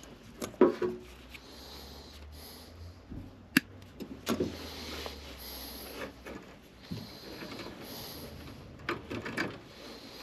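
Scattered clicks, knocks and rustling of hands and tools handling wiring and panel parts in an air handler, with a sharp click about three and a half seconds in.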